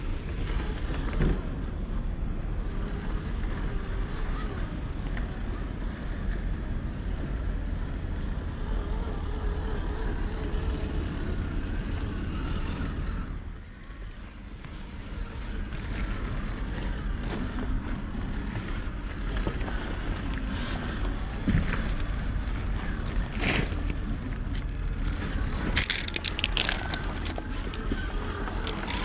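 A Traxxas TRX-4 scale RC crawler driving over beach rocks outdoors, its small electric motor and tyres heard under a steady rumble of wind and surf, with scattered clicks of the truck on rock. The sound dips briefly about halfway through, and a burst of sharp clicks comes near the end.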